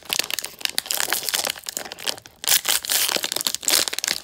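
Foil wrapper of a trading-card pack crinkling and tearing as it is pulled open by hand, with a brief lull about two seconds in before louder crinkling.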